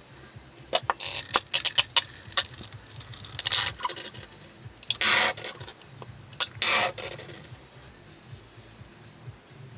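Hands cleaning shrimp: a run of small scrapes, clicks and rustles, with two louder, longer scrapes about five and seven seconds in.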